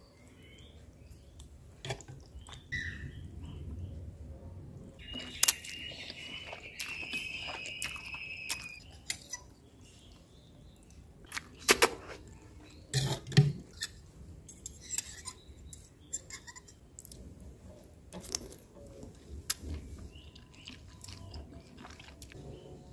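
Metal spoon stirring ramen noodles and broth in a ceramic bowl, clinking against the bowl now and then. A high wavering tone sounds for about four seconds, starting about five seconds in.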